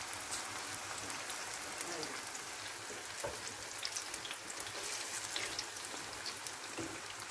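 Eggplant slices frying in hot oil in a pan: a steady crackling sizzle with many small pops.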